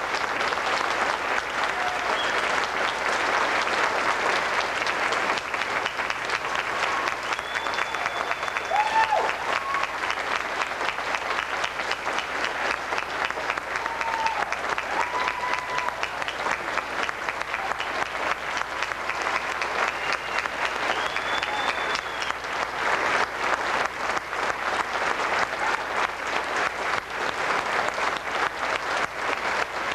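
Audience applauding steadily, a dense sustained clapping, with a few short cheers rising above it now and then.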